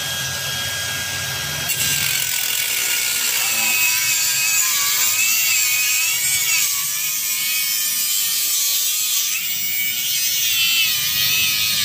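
Cordless angle grinder with a cut-off disc spinning at full speed, then cutting into a motorcycle's steel exhaust pipe from about two seconds in. Once the disc bites, the motor's whine sags and wavers under load over a loud hiss from the cut.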